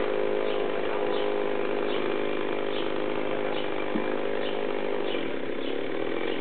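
Chainsaw running steadily at a constant pitch, as used to fell old oak trees.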